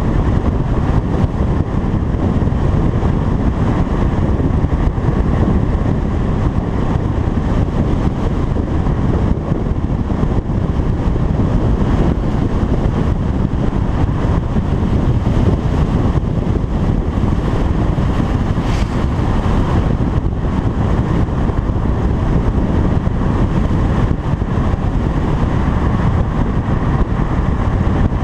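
Car driving at road speed: a steady, loud rush of road and wind noise, heaviest in the low end.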